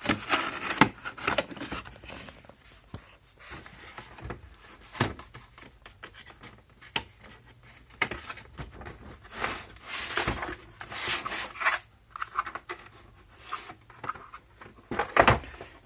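Cardboard box being handled and pried at one-handed: irregular rustling, scraping and clicking of cardboard and packaging, with a few sharper knocks.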